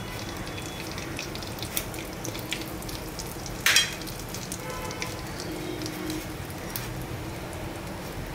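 Cumin and mustard seeds sizzling in hot oil, with scattered small pops and one louder crackle about three and a half seconds in. This is the tadka stage of cooking, where the seeds splutter in the hot oil.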